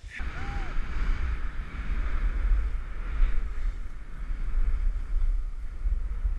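Wind buffeting the camera's microphone with a strong, steady low rumble, over the hiss of skis sliding through snow during a fast downhill run; it starts suddenly.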